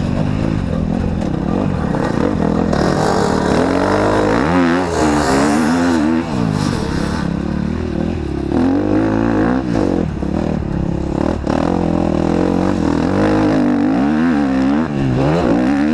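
KTM motocross bike engine, heard from on board while riding, revving up and down over and over as the throttle is worked. A few sharp knocks come around the middle.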